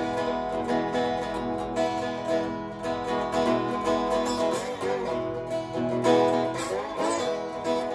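Metal-bodied tri-cone resonator guitar in open E tuning, played lap-style with a slide: picked notes and chords ring on, with the pitch gliding between notes several times.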